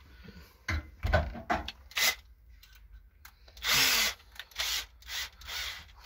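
Cordless drill-driver run in several short bursts, the longest and loudest about four seconds in, working on screws inside a gas tankless water heater.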